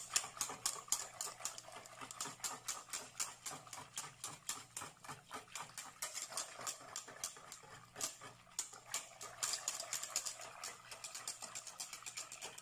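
A whisk beating milk in a metal pot, its wires ticking against the pot's side in a quick, even rhythm that pauses briefly about eight seconds in. The cook is dissolving powdered milk into whole milk until no lumps remain.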